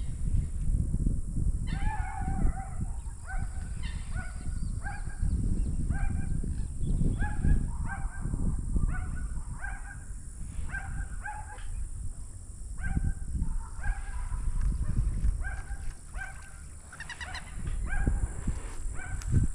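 An animal calling over and over, starting about two seconds in: short pitched calls, about one and a half a second, over a low rumble.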